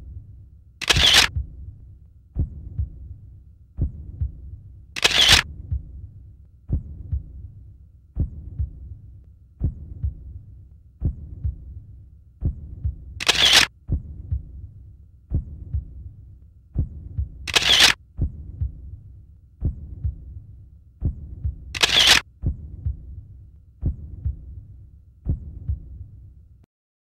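Sound-design heartbeat: low double thumps repeating about every one and a half seconds. Five loud, sharp camera-shutter-like snaps cut in over it, and the whole track stops suddenly near the end.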